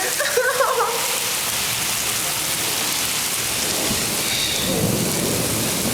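Heavy hurricane rain and wind, a steady even rush of noise.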